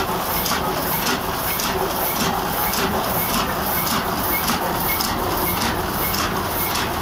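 A 1981 Heidelberg GTO 46 sheet-fed offset printing press running and printing, a steady mechanical clatter with a regular hissing beat repeating about three times a second.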